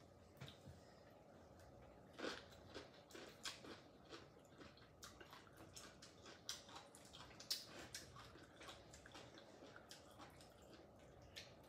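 Faint eating sounds: chewing, with scattered light clicks and taps of chopsticks and food on dishes.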